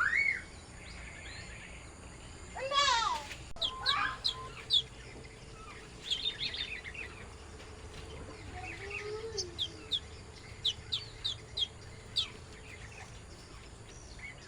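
Small birds calling and chirping: a rising call at the start, a fast run of notes about three seconds in, then scattered quick, high, downward-sliding chirps.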